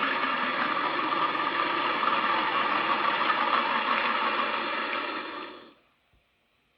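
A creature sound effect: a dense, steady, engine-like rumble that fades out quickly about five and a half seconds in.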